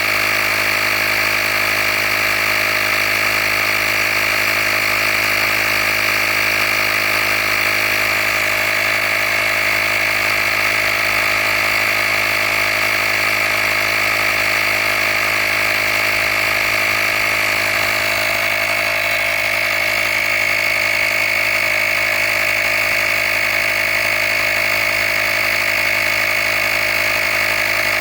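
Handheld tire-inflator air compressor running steadily as it pumps up a tire toward a preset 35 PSI: an even, unbroken motor-and-pump hum with a strong high note.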